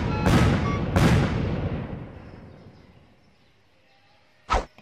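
Heavy booming impact hits, outro sound effects: a hit already ringing at the start, then two more within the first second, their long echoing decay fading out over about two seconds. A short sharp hit comes near the end.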